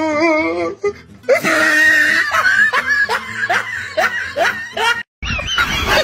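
Laughter, a quick run of short rising "ha" sounds, over background music. It starts after a brief wavering vocal cry and breaks off sharply about five seconds in.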